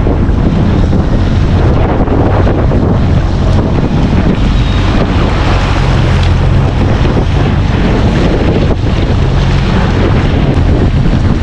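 Motor boat running at speed: a steady low engine drone under heavy wind buffeting on the microphone and the rush of water along the hull.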